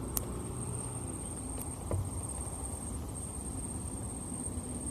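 An insect's steady high-pitched trill over a low, even background rumble, with a few faint clicks.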